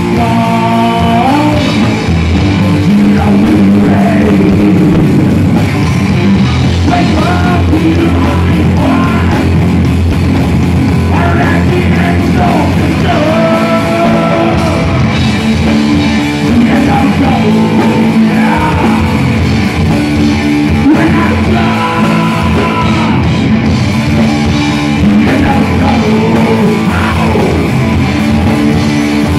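Hard rock band playing live: electric guitar, bass guitar and drum kit, loud and continuous, with a lead line sliding and bending in pitch above them.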